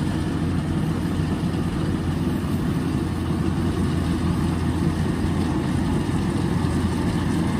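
Kubota DC-105X combine harvester's diesel engine running steadily under load while it cuts rice, a low, even drone.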